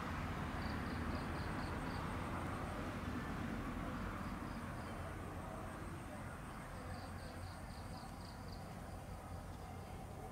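Insects chirping in short trains of evenly spaced high pulses, about four a second, repeating several times. Under them is a steady low background hum.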